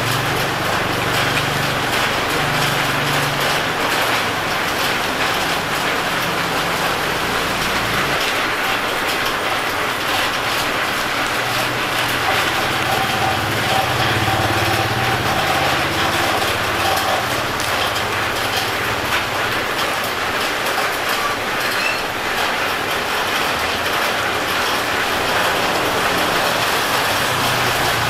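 Steady street noise with vehicle engines running and a low rumble that drops away about eight seconds in and comes back for a while later.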